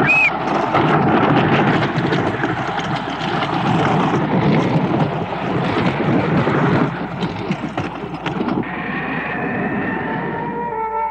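A wooden roller coaster train running along its track: a continuous rumble and rattle with many quick clacks. About seven seconds in it drops back, and near the end sustained, eerie music tones come in.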